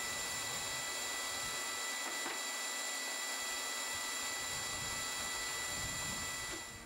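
Shop vacuum dust collection running steadily: an even, airy hiss with thin high motor whines. It drops away near the end.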